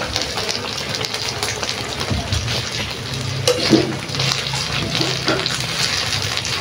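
Steamboat broth bubbling steadily in an aluminium pot on a portable gas stove, with a metal spoon stirred through the soup.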